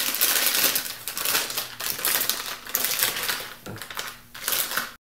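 A disposable plastic piping bag crinkling and rustling in the hands as it is fitted with a tip and filled with whipped-cream icing. The crackling comes in irregular clusters and cuts off abruptly near the end.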